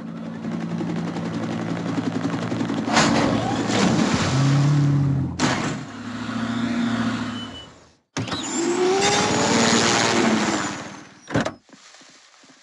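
A vehicle engine running and growing louder, with loud rushing noise that cuts off abruptly about eight seconds in. A second noisy stretch follows and ends with a sharp burst near the end.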